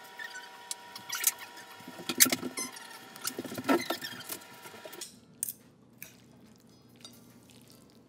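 Metal tongs clattering and scraping against plates and a foil-lined baking tray as pasta, spinach and cauliflower are served, with several loud clacks. A steady chord of held tones runs beneath and stops abruptly about five seconds in, leaving only a few faint clicks.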